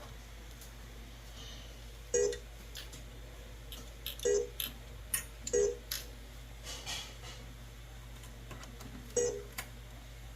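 Williams Johnny Mnemonic pinball machine in switch test mode, sounding a short beep each time a playfield switch is closed: several beeps at irregular intervals of one to three seconds, with small clicks in between.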